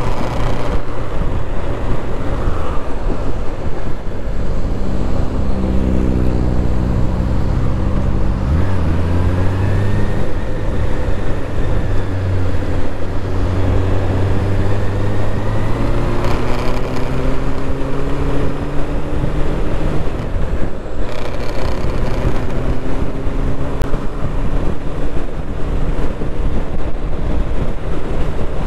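Motorcycle engine under way, its pitch rising through the gears in several separate pulls, over a steady rush of wind and road noise on the rider's microphone.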